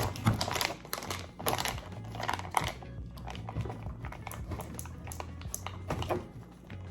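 Plastic icing bag crinkling and rustling in the hands, with many short sharp crackles, as its tip is worked open without scissors.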